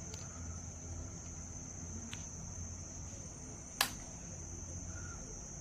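A steady high-pitched insect-like trill over a low steady hum, with one sharp click near the end.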